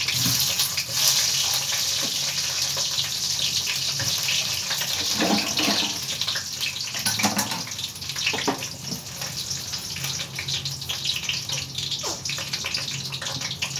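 Water running from a tap in a steady splashing hiss, with a few light clatters of kitchen utensils.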